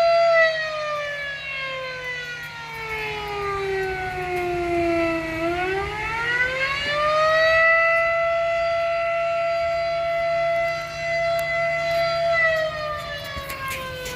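Outdoor warning siren sounding a single steady tone that slowly falls in pitch over about five seconds. It then climbs back up within a couple of seconds, holds steady, and starts falling again near the end.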